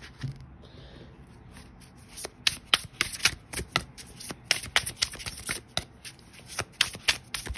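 A deck of oracle cards being shuffled by hand: after a quiet start, a quick run of crisp clicks and flutters as the cards slap together begins about two seconds in and runs for several seconds.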